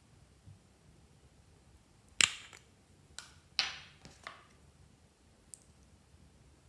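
Sharp plastic clicks and clacks as a small makeup pot's lid is snapped open and handled: the loudest about two seconds in, three more over the next two seconds, and a faint one later.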